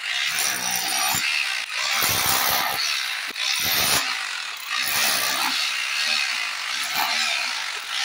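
1600-watt 26 mm rotary hammer drill in chipping mode, its flat chisel bit hammering into a concrete block wall with a rapid clattering. It runs in several bursts with short breaks between them.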